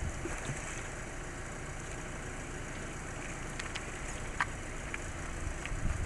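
Outdoor wind noise and small waves lapping at the shoreline, steady throughout, with a few faint clicks a little past the middle.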